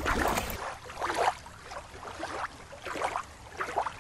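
Water lapping and splashing at the shoreline in irregular surges, without a steady rhythm.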